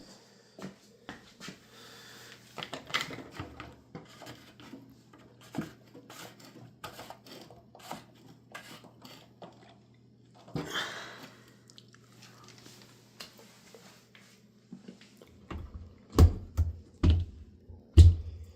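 Repeated small clicks and clatter of hard parts being handled, over a steady low hum. A short scraping rush comes about halfway through, and several heavy thumps follow near the end.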